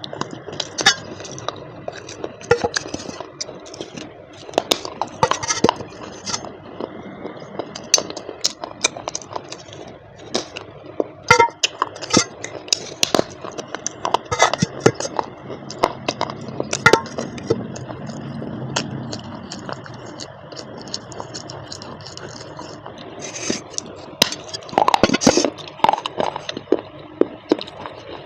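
A parcel being opened and its contents handled: many sharp, irregular clicks and clinks of hard pieces knocking together, over a steady background hiss.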